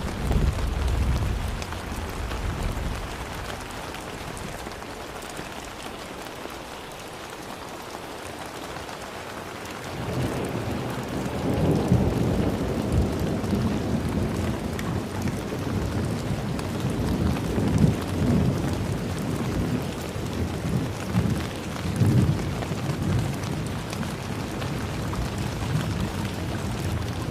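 Steady heavy rain falling, with thunder. A low rumble comes in the first couple of seconds, then a long rolling rumble builds about ten seconds in and goes on with several swells.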